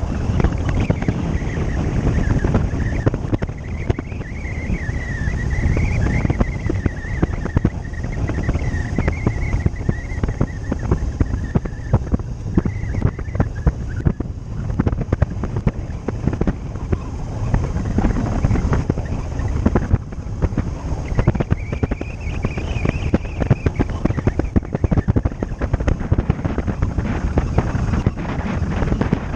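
Riding motorcycle at speed: wind buffeting the helmet or body-mounted microphone over a low engine and road rumble. A thin, wavering high whine sits above it for much of the first half and again for a couple of seconds about two-thirds through.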